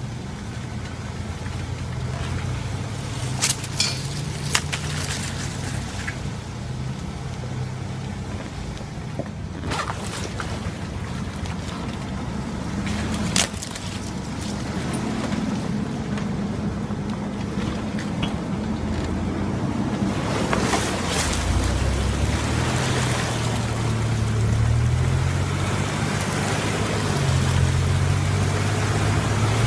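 Chevrolet S-10 Blazer ZR2's 4.3-litre V6 running at low revs, its pitch rising and falling with the throttle as it crawls off-road. A few sharp knocks come in the first half, and water splashing grows louder toward the end as it drives into a shallow creek.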